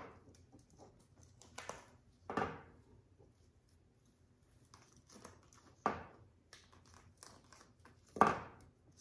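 Dry moss rustling and crunching as handfuls are pressed onto a wire wreath ring, in several short rustles a second or two apart, the loudest near the end.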